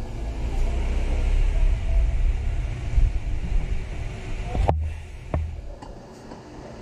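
A loud low rumble that builds up and then cuts off abruptly about four and a half seconds in, followed by a couple of light clicks.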